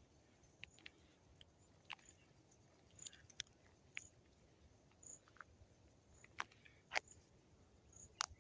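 Near silence: a quiet evening outdoors, with scattered sharp clicks (the loudest about 7 seconds in) and faint, short, high chirps repeating about once a second.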